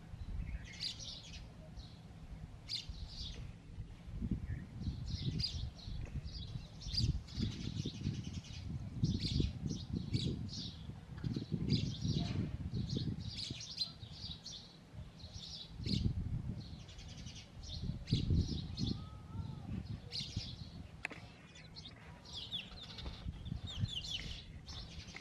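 House sparrows chirping repeatedly and loudly at the nest, a steady stream of short, high chirps. A low rumble comes and goes underneath.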